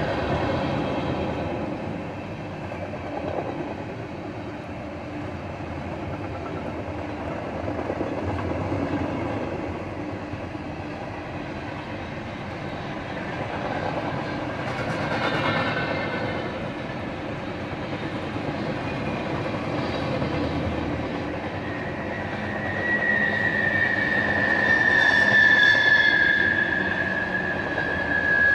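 Cars of a Norfolk Southern mixed freight train rolling past steadily. A brief high squeal from the wheels comes about halfway through. A longer, louder squeal sets in near the end and holds for several seconds, falling slightly in pitch.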